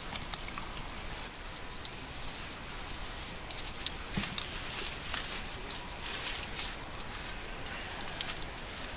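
Campfire of wood and charcoal crackling with scattered sharp pops, while a wooden spoon stirs vegetables in an aluminium saucepan set on the embers.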